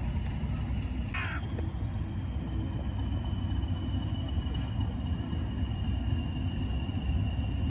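Diesel locomotive engine running with a steady low rumble and a thin high whine. A crow caws once about a second in.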